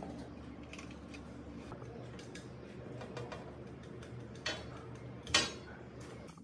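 Small scattered clicks and taps of hard objects being handled, over a steady low hum, with two sharper ringing knocks about four and a half and five and a half seconds in, the second the louder.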